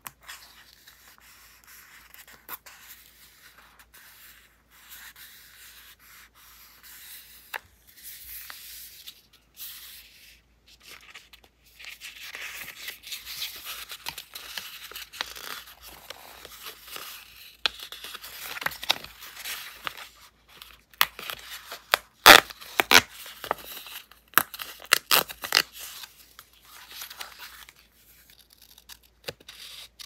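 Close-up sounds of paper and stickers being handled in journal decorating: rustling, rubbing and peeling. It gets busier about halfway through, and a cluster of sharp crackles and clicks comes about three-quarters of the way in.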